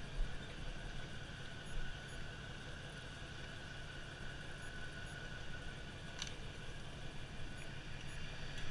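Steady low engine hum with a faint, constant high whine, like a vehicle engine idling; one short click about six seconds in.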